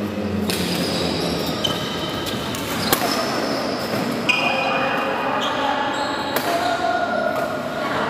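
Badminton rally on a court mat: a few sharp racket hits on the shuttlecock and short high squeaks of shoes on the court, over background chatter echoing around a large hall.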